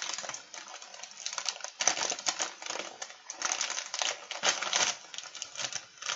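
A potato chip bag crinkling and crackling as it is gripped and pulled open by hand, with loud bursts of rustling about two seconds in and again around four to five seconds in.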